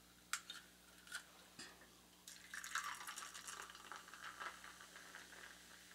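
7-Up soda poured from a can into a metal cup, a faint splash and fizz from about two seconds in, with a few light clicks before it.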